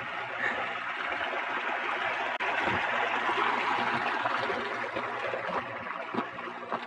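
Shallow mountain creek, runoff from a lake, steadily rushing and trickling over rocks.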